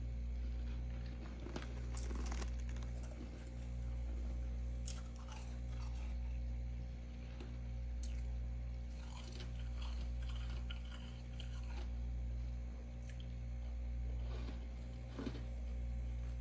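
Packed freezer frost crunching as it is bitten and chewed, in a few scattered crackly bursts. Underneath runs a steady low hum that swells and fades about every two seconds.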